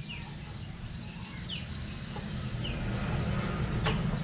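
A bird gives a few short, high, falling chirps, about a second apart, over a steady low rumble. A sharp click sounds near the end.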